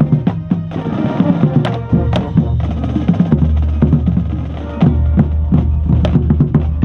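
Marching band playing, with the drumline loud and close: rapid bass drum and snare strokes over sustained band tones.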